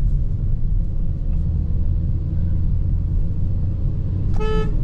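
Hyundai Venue's engine and road rumble as it pulls away in second gear. A short car horn beep near the end.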